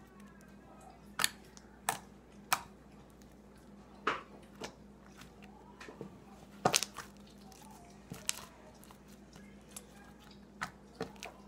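Jiggly, slightly sticky slime with foam beads being poked and pressed by fingers, giving irregular sharp clicks and pops, about ten of them.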